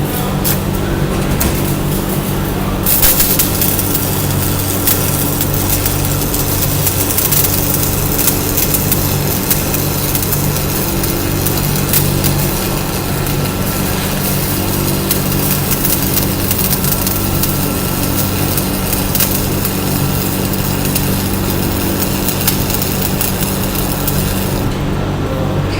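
Stick (arc) welding with an E6013 rod at about 135 amps: the arc strikes about three seconds in and crackles and sizzles steadily as a bead is run, then cuts off shortly before the end. A steady hum sits underneath throughout.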